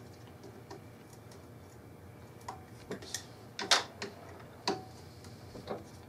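Phillips screwdriver working stainless steel screws out of a sump pump's float-switch cover: small metal clicks and ticks at an uneven pace, starting about halfway through, the sharpest a little past the middle.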